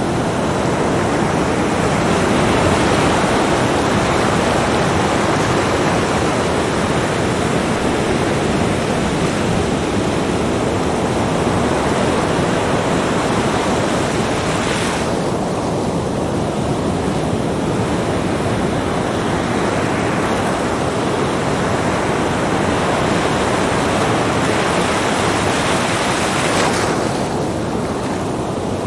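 Small surf breaking and washing up a sandy beach: a steady rush of water, with the hiss of foam falling away about halfway through and again near the end.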